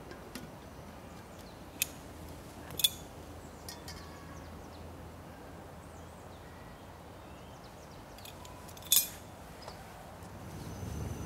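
A few sharp clinks or clicks: one a little under two seconds in, a louder one about a second later, and a louder, slightly drawn-out one about nine seconds in, over a steady low background.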